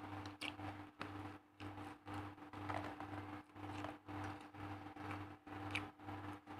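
A low hum pulsing on and off about twice a second over a steady higher tone, with faint clicks and rustles scattered through.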